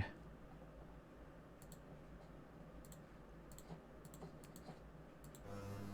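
Near silence with a few faint, scattered clicks of a computer mouse and keyboard. A low hum comes in just before the end.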